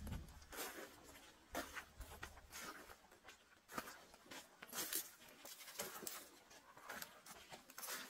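Faint footsteps on dry dirt, leaves and twigs: irregular crackles and rustles, roughly one a second.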